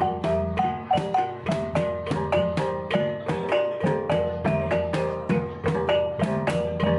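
Background music: a melody of struck mallet-percussion notes like a marimba, over a steady beat and bass line.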